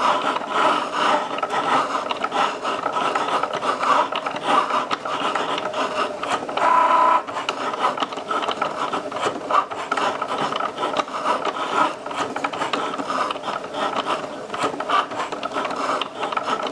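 Cricut Joy cutting machine running a cut: its small motors whir in short changing runs as the blade carriage moves side to side and the mat feeds in and out, the pitch shifting with each move.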